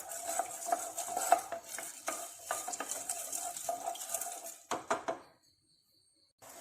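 A spoon stirring a pan of boiling cough-syrup mixture with rock sugar just added, clinking and scraping against the pan. The sound cuts off abruptly about five seconds in.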